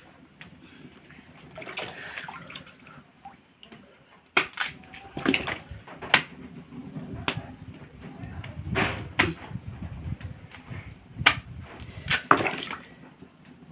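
Water sloshing and splashing in a container, with a string of sharp knocks and clatters of utensils or pots.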